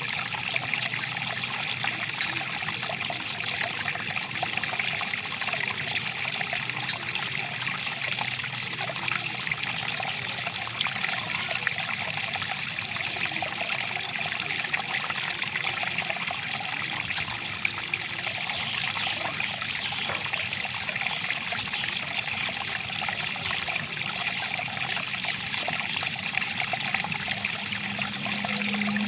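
Water flowing and trickling steadily over a stream or river bed. A low steady hum comes in near the end.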